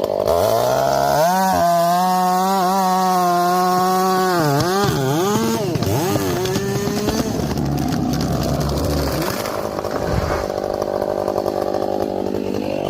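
Chainsaw engine revving high while cutting wood: its pitch climbs in the first second and holds, then dips and wavers around five seconds in as the chain loads up in the cut, after which the sound turns rougher and noisier.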